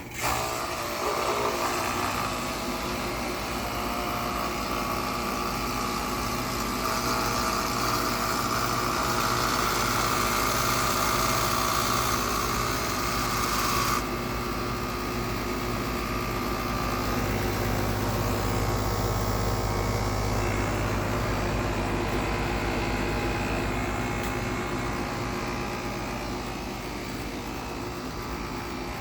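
A 2013 Carrier Comfort HVAC unit starting up with a horrible noise. It comes on suddenly with a hum and a high rushing whine that builds, and about halfway through the whine and hiss cut off abruptly. A steady running hum with a low drone is left.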